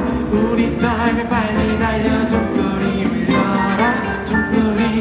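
Live band music: a wavering melody line over steady drums and bass, with a voice or lead instrument carrying the tune.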